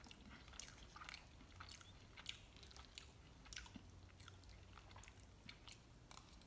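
Faint chewing of a mouthful of mole chilaquiles, tortilla chips in sauce, with irregular small crunches.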